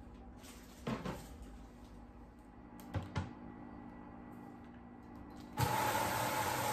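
Two pairs of light knocks, about one and three seconds in, then the kitchen tap is turned on about five and a half seconds in and water runs steadily into a stainless steel sink.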